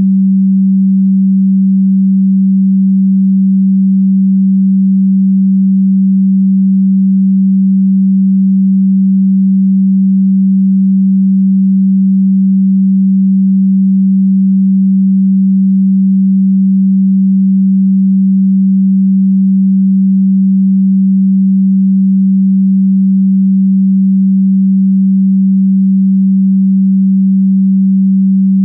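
A single steady, electronically generated sine tone, low in pitch, held loud and unchanging throughout.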